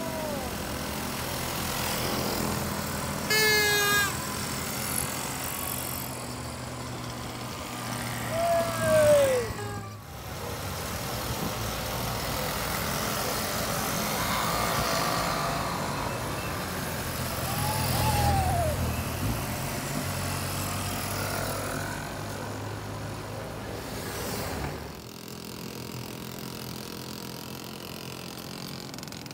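Small two-stroke engines of VéloSoleX mopeds running as a line of riders passes. A few short rising-and-falling tones cut across the engine sound.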